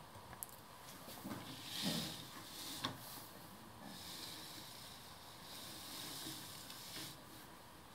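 Faint handling noise as the model steam locomotive is moved by hand on its track: soft rustling with a few sharp clicks, the clearest about three seconds in.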